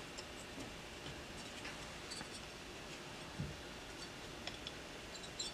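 Faint small clicks and scratches of fingers working a washer into a hole in a cast Harley-Davidson Panhead engine cover, with one soft low bump about three and a half seconds in.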